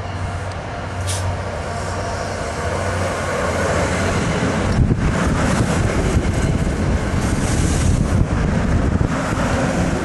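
NJ Transit passenger train approaching and its coaches rolling past close by: a rising rush of wheel and air noise over a low steady hum, loudest in the second half as the cars go by.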